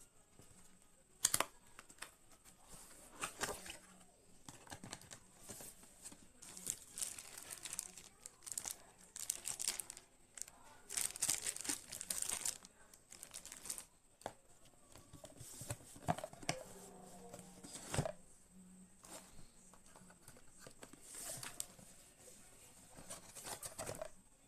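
Packaging being handled and opened: irregular rustling, crinkling and tearing, with a few sharp clicks, the loudest a little over a second in and again near the three-quarter mark.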